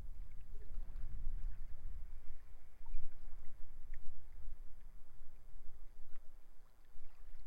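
Sea waves washing on the shore, mixed with strong gusty wind buffeting the microphone as a low rumble that swells and eases.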